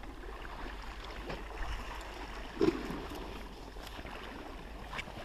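Wind noise on the microphone over sea washing below the sea wall, with a short low sound about two and a half seconds in and a sharp click near the end.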